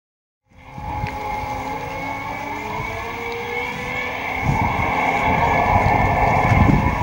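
A radio-controlled model patrol boat's motor running, a steady whine with a few tones that shift slightly in pitch, starting about half a second in. Low rumbling gusts, typical of wind on the microphone, make it louder from about halfway.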